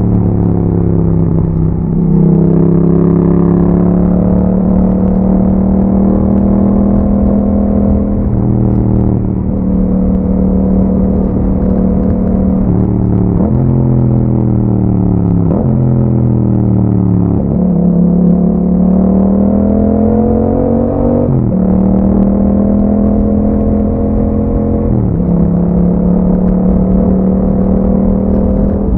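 Yamaha MT-07's 689 cc parallel-twin engine running through an aftermarket Akrapovic exhaust while riding. The revs rise and fall several times, with sudden pitch steps at the gear changes.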